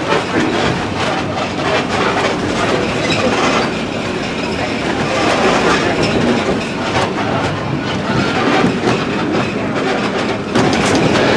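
Passenger train rolling along, heard from aboard: a steady rumble of steel wheels on the track with irregular clicking and clacking over the rail joints.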